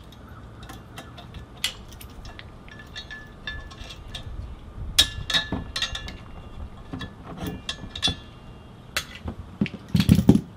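Metal clicks and clinks from an Allen key turning bolts and a steel swivel arm TV mount being taken apart, with short metallic rings. Near the end there is a louder run of clunks as the metal mount parts are handled and set down.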